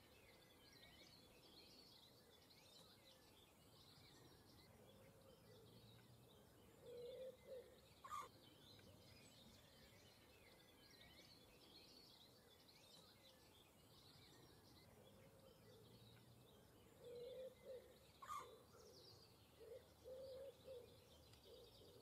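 Faint distant birdsong, with small birds chirping throughout. Short groups of low pitched calls come about seven seconds in and again over the last few seconds. Two sharp clicks are heard.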